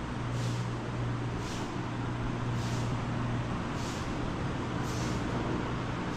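A steady low mechanical hum, with a soft scuffing footstep on a gritty dirt floor about once a second.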